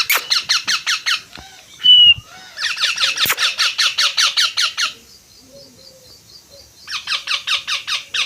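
Baby Indian ringneck parrot chicks calling in rapid runs of short, repeated begging calls, about six a second, in three bursts, with a brief whistle about two seconds in. The chicks are hungry and asking to be fed.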